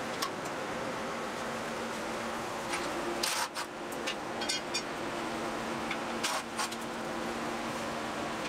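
Steady hum of an electric fan running, with a few short sharp clicks and rattles of plastic clips and parts being handled, the loudest about three seconds in and about six seconds in.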